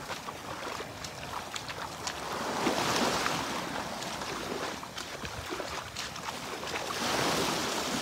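Small Gulf of Mexico waves washing up on a sandy beach, the surf swelling about three seconds in and again near the end.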